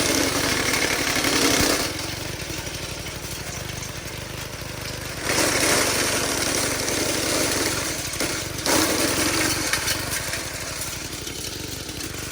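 Small gas engine of a wood chipper running steadily, with three louder spells of grinding noise as branches are chewed up: one over the first two seconds, one from about five to eight seconds, and a short one just after.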